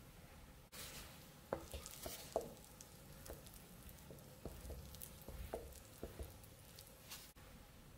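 Wooden spatula stirring thick pancake batter with flour-dusted berries in a ceramic bowl: faint wet stirring with a light hiss and scattered sharp clicks of wood against the bowl.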